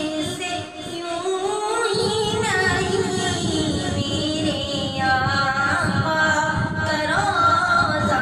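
A young man singing a naat, an Urdu devotional song, in long held notes that glide up and down.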